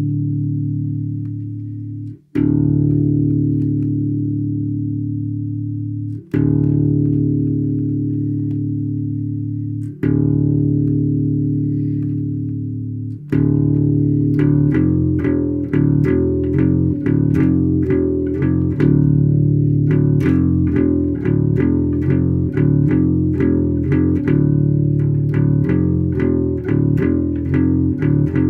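Instrumental section of a rock song on guitar and bass: long ringing chords, each struck and left to die away, about every four seconds, then a fast run of picked notes from about halfway through.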